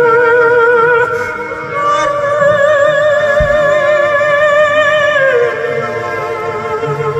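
Live music: long held melodic notes with a wide vibrato over a lower accompaniment, the melody sliding down in pitch about five seconds in.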